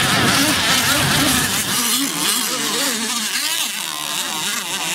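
Radio-controlled racing catamarans' motors buzzing at speed, their pitch wavering up and down as the boats run. A low rumble sits under them for the first couple of seconds.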